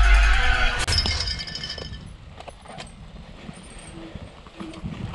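Music that stops about a second in with a sharp clinking hit, followed by quieter, irregular clicking and rattling from a downhill mountain bike running over a dirt trail.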